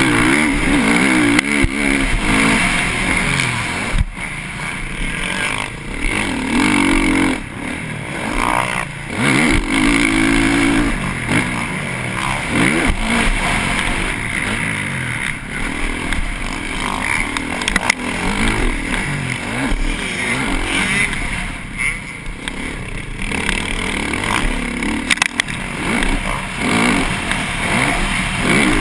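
TM MX450Fi fuel-injected four-stroke single-cylinder motocross engine revving hard under race throttle, its pitch rising and falling as the rider accelerates, shifts and backs off every few seconds, heard from the rider's helmet camera.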